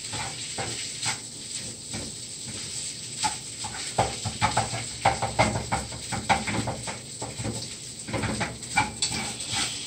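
Rice and scrambled eggs frying in butter in a pan, sizzling steadily, with a utensil scraping and clicking against the pan as it is stirred, the clicks coming thicker from about four seconds in.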